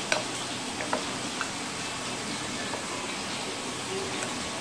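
Chopsticks stirring marinated boneless chicken thigh meat in a bowl, a wet mixing sound with a few light clicks of the sticks against the bowl in the first second and a half, over a steady hiss.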